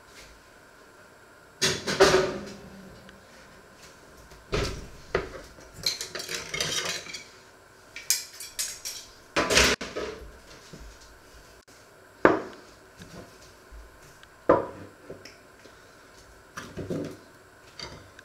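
A ceramic plate and metal cutlery clinking and knocking on a wooden countertop as the dishes are cleared away. The clatters come in scattered groups every few seconds, with a longer rattle about six seconds in.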